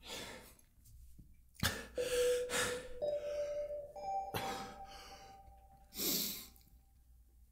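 A man breathing heavily, out of breath, with several hard breaths and a strong blown-out exhale about six seconds in. Under it, music: a held note that steps up in pitch twice, then fades.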